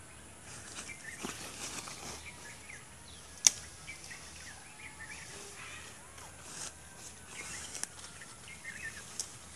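Quiet outdoor ambience with small birds chirping on and off, and one sharp click about three and a half seconds in.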